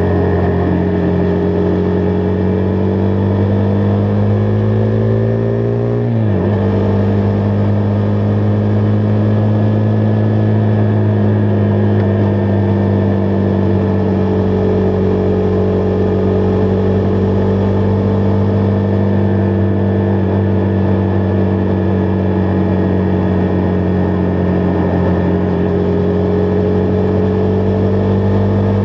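Husqvarna Vitpilen 401's single-cylinder engine running under way, its pitch climbing gently for about six seconds, then dropping suddenly and holding nearly steady after that.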